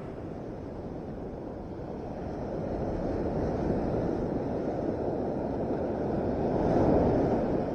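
Surf washing on the beach, swelling to its loudest about seven seconds in and then easing, with wind buffeting the microphone.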